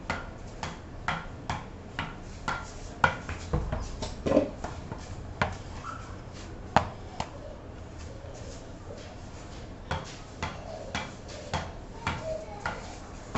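A ball bounced repeatedly on the wooden face of a cricket bat, sharp taps about two a second. The taps stop for a couple of seconds in the middle, then start again.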